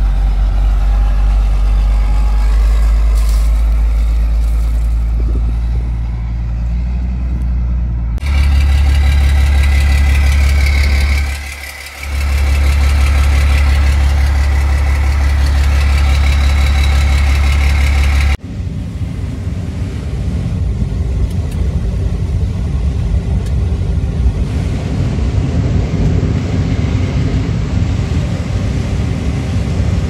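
Heavy farm harvest machinery running steadily at working speed, a deep engine hum with machine whine above it. The sound changes abruptly twice, about a quarter and again about three fifths of the way in, and dips briefly in between.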